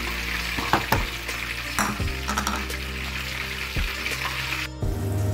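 A spoon stirs a pan of oats cooking in milk on the stove, with a steady hiss from the pan and a few clinks of the spoon against it. Background music plays underneath.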